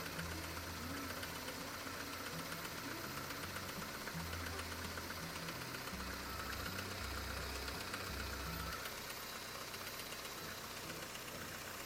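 Car engine idling with an uneven extraneous knock, heard near the timing belt. Its cause is unknown to the owner.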